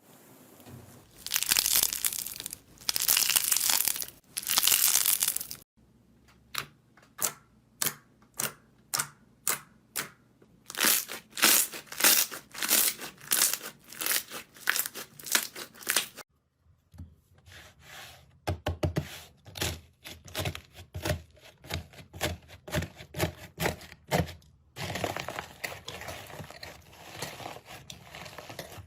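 Slime being squeezed, poked and pressed by hand in a series of short clips. It starts with long crackling squeezes, then about one sharp crackling press a second, then quicker clicking pops, and ends with steady crackling.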